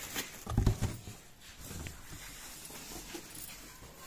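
Plastic film wrapped over a boxed 21-inch speaker rustling as hands pull at it. A few dull handling thumps come about half a second in, with lighter clicks and crinkles after.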